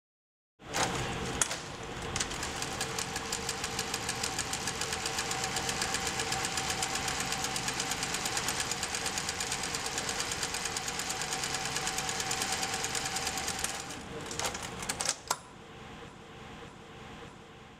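Golden Wheel CS-2480D-BFT single-needle zigzag lockstitch industrial sewing machine sewing at steady speed, with a fast, even rhythm of needle strokes. It stops about fourteen seconds in with a few sharp clicks, and a fainter steady sound follows.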